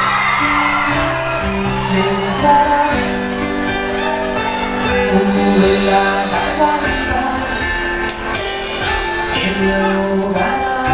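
Tierra caliente band playing live through the PA, with drum kit and electric guitar in the mix.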